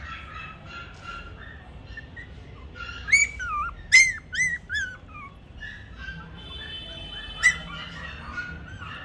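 Toy Pomeranian puppy giving a quick run of five or six short, high yelps and whines about a third of the way in. A single sharp click follows a few seconds later.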